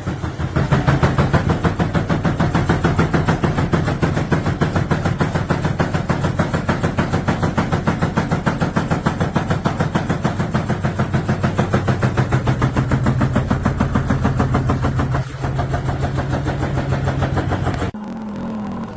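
Front-loading washing machine spinning with a loud, rapidly pulsing rumble over a steady hum, vibrating hard enough to shift on the floor. The noise drops abruptly about a second before the end.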